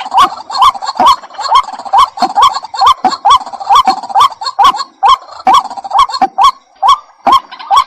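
White-breasted waterhen calling: a steady, repeated run of short notes, each rising in pitch, about two a second, with a brief break near the end.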